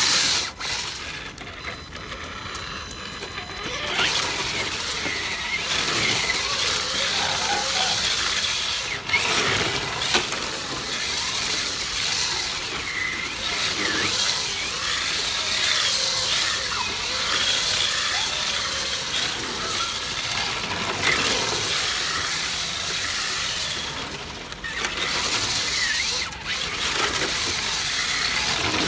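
RS4 radio-controlled drift car sliding on a futsal court floor, its tyres hissing and squealing in short squeaks as it drifts. The sound drops away briefly during the first few seconds and again about 24 seconds in.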